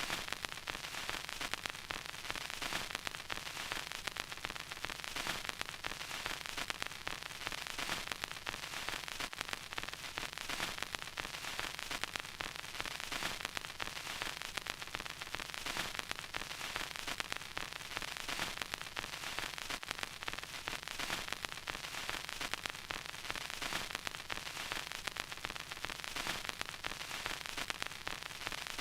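Vinyl record crackle: a steady surface hiss thick with small, dense pops and clicks, unchanging throughout.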